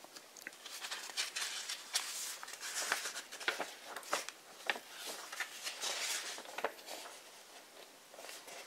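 Pages of a thick hardcover book being turned by hand: a string of short papery rustles and flicks, several pages in quick succession.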